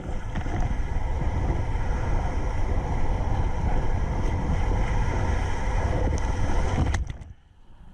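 Wind buffeting the camera microphone and lake waves splashing against a kayak, a loud, dense rumble. It cuts off abruptly about seven seconds in, leaving a much quieter, dull sound.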